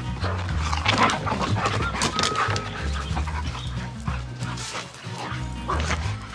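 Background music with a repeating bass line, over two dogs playing rough: a golden retriever puppy and an English cocker spaniel, panting and scuffling.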